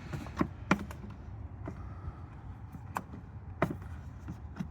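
Plastic trim pieces and clips in a car's engine bay being unclipped and handled by hand, giving about five separate sharp clicks and knocks over a steady low hum.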